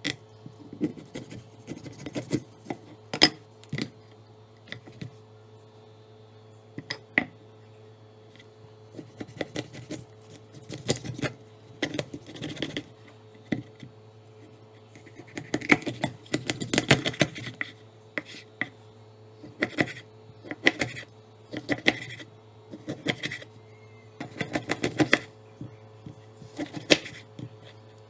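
Large kitchen knife chopping a pomfret into pieces on a wooden cutting board: irregular knocks of the blade striking the board through the fish, some single, some in quick runs. A steady low hum sits underneath.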